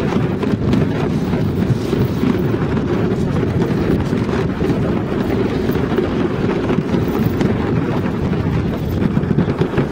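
Alpine slide sled running fast down the track with a steady, loud rumble, and wind buffeting the microphone.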